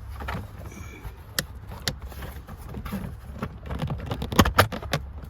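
Plastic steering-column clamshell cover being pried and worked loose: scattered clicks and knocks of plastic, with the loudest pair close together near the end.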